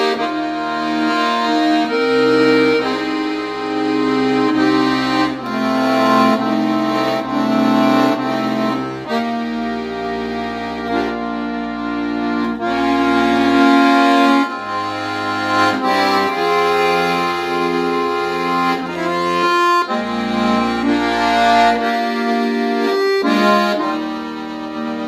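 Piano accordion played solo: a slow hymn melody in sustained chords on the right-hand keys over bass notes. Each note or chord is held for a second or two before the next.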